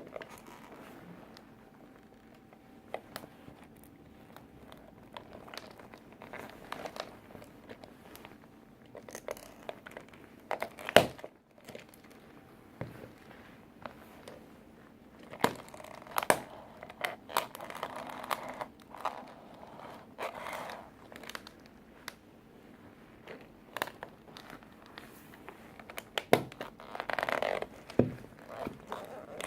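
Toy tractor being crushed under work boots: irregular sharp cracks and snaps with quieter crinkling and crunching between them. One crack near the middle is the loudest, and the breaking comes in denser flurries later on.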